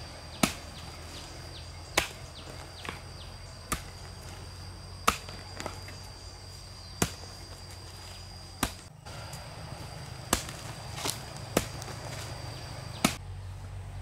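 Sharp single chopping strikes of a blade into wood or bamboo, irregularly about one every second or two, over a steady high-pitched whine. A brief break about two-thirds of the way through.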